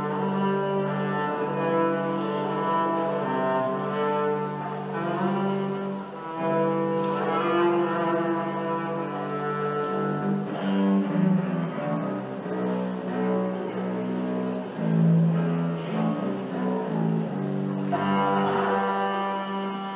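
Two double basses played with the bow in a duet, holding long notes in two parts that change every second or so: a Christmas arrangement for bass duo.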